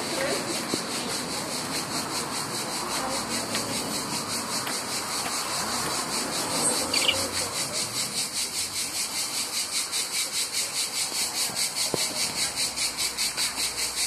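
Cicadas in the roadside trees singing a steady, high, pulsing chirr, about four pulses a second, over low street noise.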